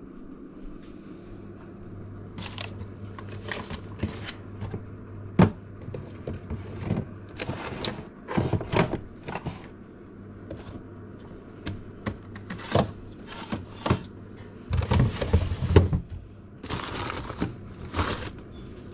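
Rummaging in an open refrigerator: scattered knocks, clinks and crinkling of plastic as packages are moved on the shelves and in the crisper drawer, over a low steady hum.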